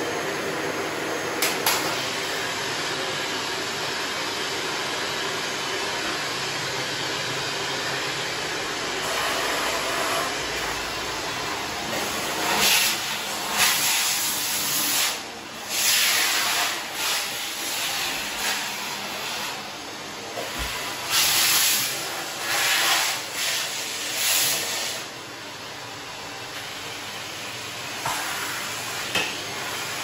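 Shark upright vacuum cleaner running, sucking air through its hose attachment with a steady rushing hiss. From about twelve seconds in until about twenty-five seconds in, the suction noise comes in irregular louder rushes with sharp crackles as the tool is worked along the floor edge, then settles back to the steady hiss.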